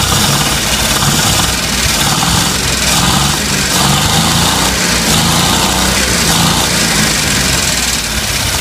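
1957 Dodge D100 pickup's 230 cubic-inch flathead straight-six idling steadily on its own with a freshly rebuilt carburetor.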